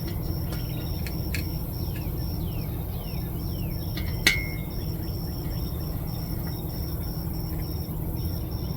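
Steady low hum with an insect's regular high-pitched chirping pulses, a few small clicks, and one sharp metallic clink with a short ring about four seconds in, from heater parts and tools being handled.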